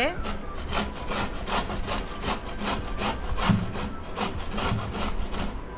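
Peeled raw Rajapuri mango being scraped up and down the large holes of a stainless-steel box grater, an even rhythm of strokes about four a second.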